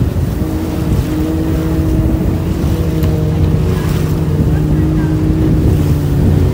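Motorboat engine running steadily under way, a low even drone, with water and wind noise around it.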